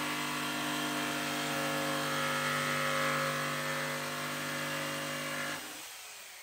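Corded jigsaw cutting plywood, its motor and blade running steadily. About five and a half seconds in it is switched off, and the motor winds down with a falling whine.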